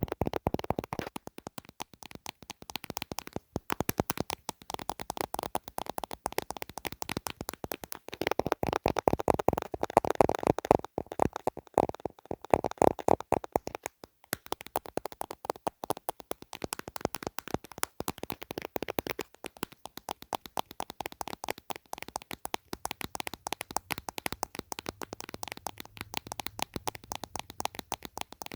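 Rapid fingertip and fingernail tapping on a camera body and phone case, many quick taps a second, in flurries with short pauses between them.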